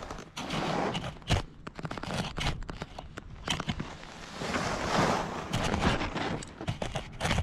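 Skis or boots scraping and crunching over packed snow right by the camera's microphone, an uneven rushing noise that swells twice and is broken by many sharp crackles and knocks.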